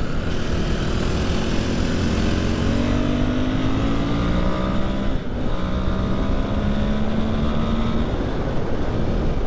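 Husqvarna FE 501's single-cylinder four-stroke engine pulling hard under acceleration, its pitch rising. It drops back briefly about five seconds in as it shifts up a gear, then climbs again and levels off near the end.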